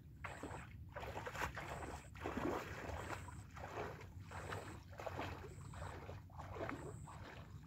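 Shallow lake water sloshing and splashing around a person's legs as he wades out, a splashy step about twice a second.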